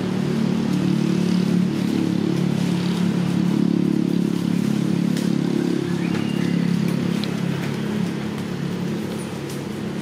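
An engine running with a steady low hum, swelling slightly and then easing off near the end.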